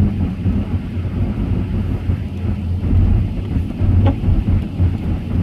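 Car driving on a snow-covered road, heard from inside the cabin: a low, uneven rumble of tyres and engine, with a short knock about four seconds in.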